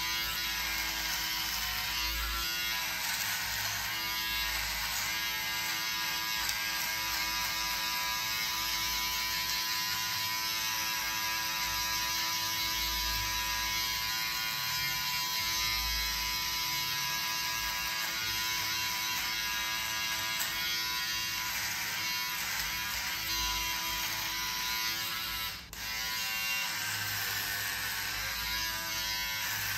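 Philips Series 3000 electric beard trimmer with a guard comb running steadily as it cuts through a beard, its hum sagging slightly in pitch now and then, with a momentary break near the end.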